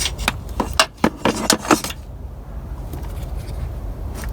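A quick series of light metallic clicks and clanks, about eight in the first two seconds, as parts are handled in a car's engine bay, then only a steady low background rumble.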